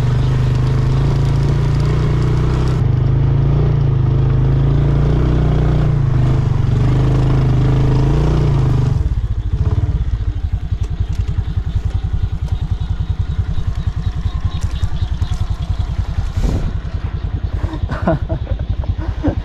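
Small motorcycle engine running at raised revs, its pitch rising and falling, then dropping to a lower, pulsing idle about nine seconds in.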